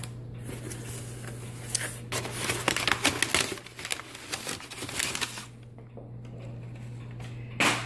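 Crumpled kraft packing paper rustling and crinkling as a hand rummages through it and pulls it out of a cardboard box, dense and irregular for about five seconds, then dying down, with a short knock near the end.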